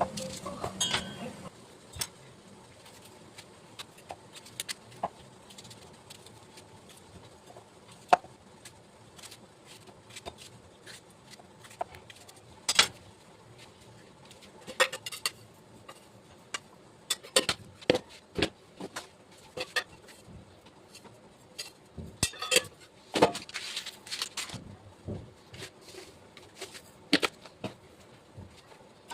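Kitchen utensils and dishes clinking and knocking now and then: scattered, irregular sharp clicks and clatter, with a busier run of clatter a little past two-thirds of the way through.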